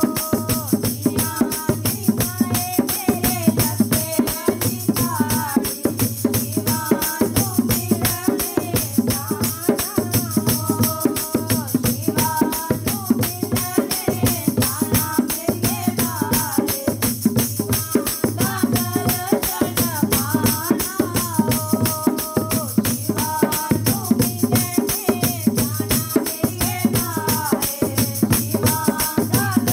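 Dogri devotional bhajan: a voice sings a wavering melody over constant tambourine-like jingling and a steady beat of about one deep pulse a second.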